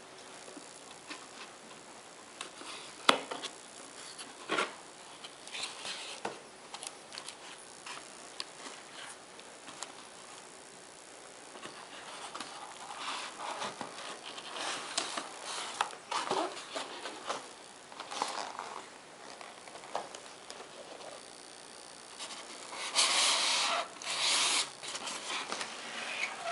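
Cardboard box and its styrofoam packing being handled and opened by hand: scattered rustles, scrapes and sharp knocks, with a longer, louder scraping rustle near the end as the box is tipped and the packing slid out.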